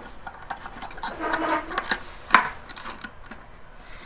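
Plastic desk clamp of a microphone stand being fitted and screwed onto the edge of a wooden table: a run of small clicks and scrapes, with one louder knock a little past halfway.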